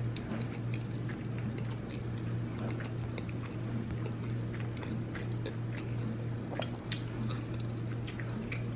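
Close-miked chewing with the mouth closed: many small wet clicks and squelches, over a steady low hum.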